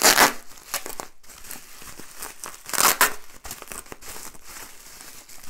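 Product wrapping crinkling and rustling as it is cut through with scissors, with small crackles throughout and two louder rustles: one right at the start and one about three seconds in.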